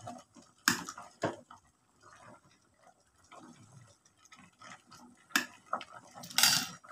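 A metal ladle stirring papaya leaves in a pot of boiling water: soft sloshing, with the ladle knocking against the metal pot a few times and a longer scraping clatter near the end.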